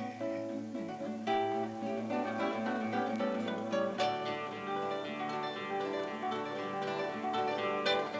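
Background music on plucked acoustic guitar, a run of quick picked notes and strums.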